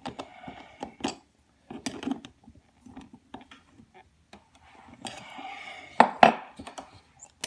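Metal clinking and scraping from handling a Model T Ford ignition coil and tools, with two loud, sharp knocks about six seconds in.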